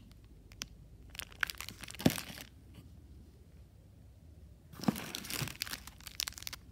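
Chocolate-bar wrappers crinkling as they are handled and moved about in a box, in two bursts: about a second in and again about five seconds in.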